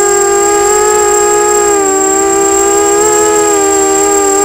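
Motors and propellers of a 250-size FPV racing quadcopter, recorded on the drone itself, giving a steady whine whose pitch wavers and dips slightly with throttle, about two seconds in. A thin, constant high-pitched tone runs under it.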